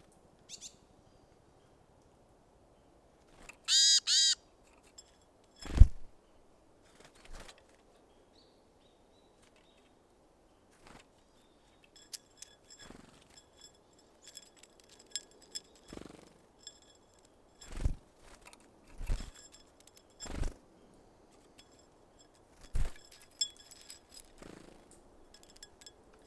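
Small birds at a seed feeder: a bird gives two loud, harsh call notes about four seconds in. Scattered knocks and thumps at an uneven pace follow, with faint high chirps between them.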